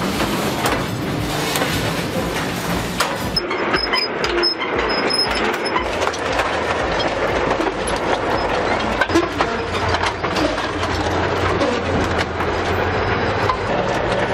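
A heavy vehicle running, with a continuous rapid metallic clatter and a steady low engine hum.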